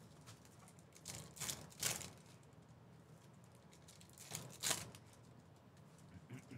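Trading card pack wrappers crinkling and tearing as they are handled and pulled open, in a handful of short crackly bursts with quiet gaps between.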